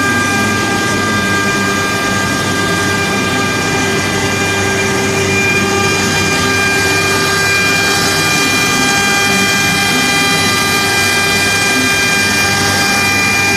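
CNC router running: a steady, high-pitched spindle whine with several tones over a continuous machine noise.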